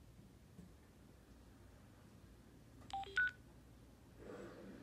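Lexin LX-B4FM motorcycle Bluetooth intercom playing a quick three-note electronic chime through its helmet speakers about three seconds in, during intercom pairing between the two units, against quiet room tone.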